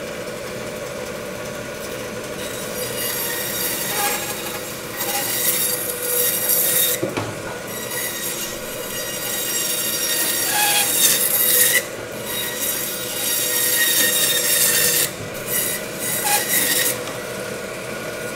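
Meat bandsaw running with a steady hum while its blade cuts in several passes through the rock-hard bones of a 42-day dry-aged beef rib section, each pass a harsh high-pitched rasp.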